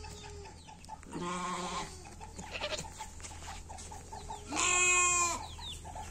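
Bannur sheep bleating three times: a short faint bleat at the start, a lower bleat about a second in, and a louder, higher bleat about four and a half seconds in that lasts nearly a second and drops in pitch at the end.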